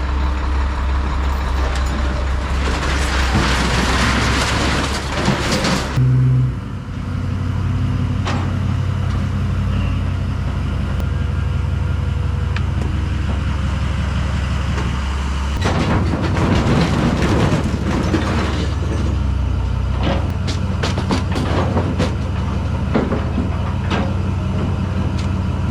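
Heavy truck engine running steadily, with two stretches of louder noise and knocks.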